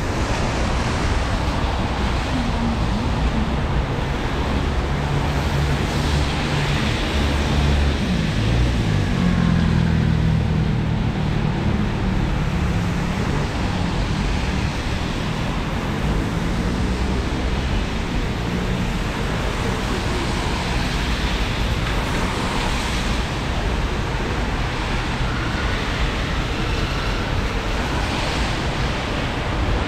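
City street traffic on wet roads: a steady hiss of tyres, with a vehicle's engine hum passing close from about eight to thirteen seconds in.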